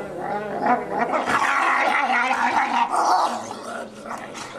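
Wolves whining and snarling close up, loudest and harshest from about one to three seconds in.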